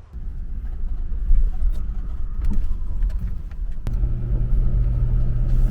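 A car's low, steady rumble, with a sharp click about four seconds in, after which a steady low hum joins.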